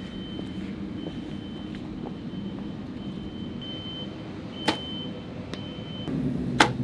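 Compound bow shot: a sharp snap of the released string near the end, with another sharp click about two seconds before it. Under it runs a steady outdoor hum and a high tone that comes and goes.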